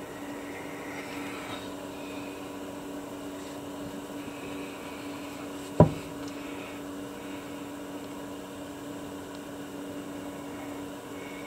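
Steady hum of a workshop machine, with one sharp knock a little before six seconds in: the stone crab concretion bumping the wooden work block as it is picked up.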